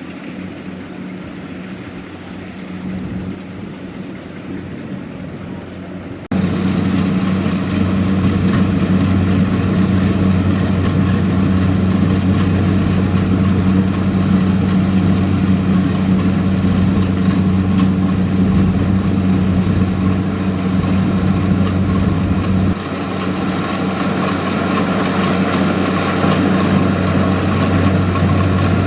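Kubota DC-70 Plus combine harvester's diesel engine running with a steady drone, abruptly much louder about six seconds in, then easing off slightly near the end.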